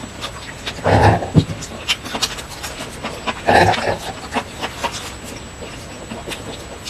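Close-miked chewing and mouth noises: a steady run of small wet clicks and smacks, with two louder, breathier bursts about one and three and a half seconds in.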